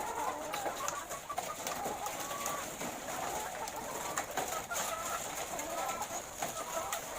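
A flock of laying hens clucking and calling over one another, with scattered sharp clicks and taps.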